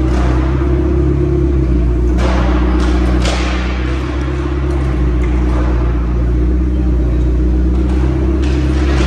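McLaren supercar's twin-turbo V8 idling with a steady low rumble. A few sharp knocks ring out in the echoing concrete hall, about two and three seconds in and again near the end.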